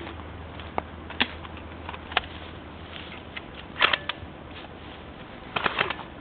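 Irregular sharp clicks and crackles: a few single ones, then two quick clusters, about four seconds in and near the end.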